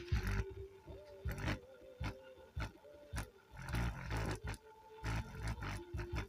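Woofer driven by the repaired TIP3055/TIP2955 amplifier board, playing bass-heavy audio: repeated low thumps and rumble with a steady tone above them.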